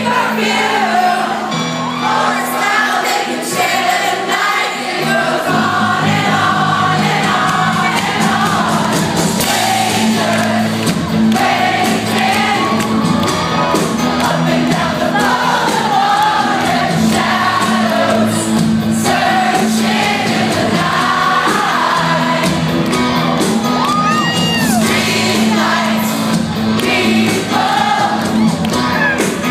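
Live rock band playing with several voices singing together into a microphone, amateur-sounding. The bass and drums fill in about five seconds in.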